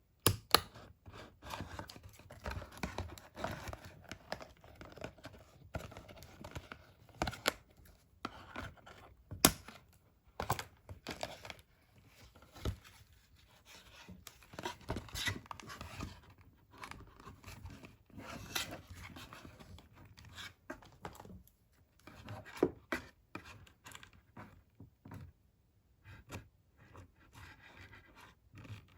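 Doll packaging being opened by hand: irregular tearing, rustling and scraping of cardboard and plastic, with sharp clicks and snaps now and then, the loudest about nine and a half seconds in.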